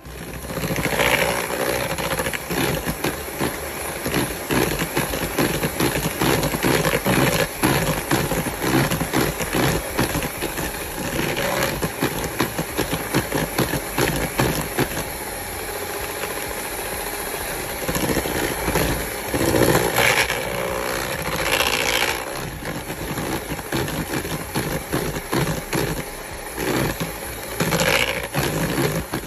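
Electric hand mixer running steadily, its two wire beaters whisking cake batter in a bowl, with a dense rattle and scrape of the beaters against the bowl.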